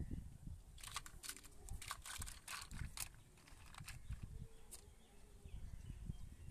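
Small plastic toys clicking and clattering against each other as they are picked up and handled: a run of sharp clicks in the first half and another near the end, over a low rumble.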